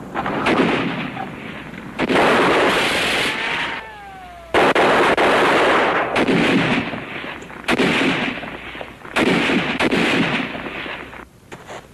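Machine-gun fire in long bursts, about six of them, each a second or two long with short gaps between. A falling whine sounds just before the fourth second, and the firing thins to a few single cracks near the end.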